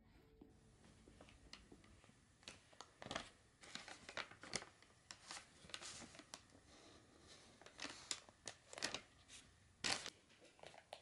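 Hands handling balls of cotton-acrylic yarn with paper band labels on a wooden table: faint, scattered rustles, crinkles and light taps at an uneven pace.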